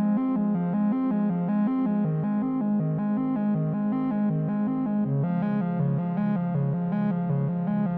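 Intro music: a synthesizer or electric-keyboard tune of quick repeating notes at a steady level, its pattern shifting about five seconds in.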